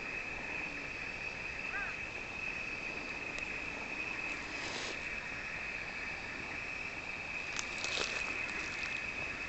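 Outdoor ambience with a steady, high insect trill. A short chirp comes about two seconds in, and brief rustling noises come around five and eight seconds in.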